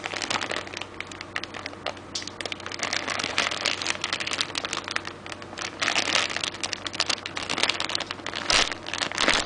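Clear plastic bag around a model kit's parts trees crinkling as it is handled: a continuous crackly rustle, louder about six seconds in and again near the end.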